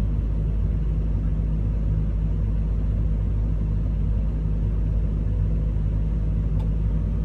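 Komatsu 210 excavator's diesel engine running steadily at an even, unchanging speed, heard from inside the operator's cab.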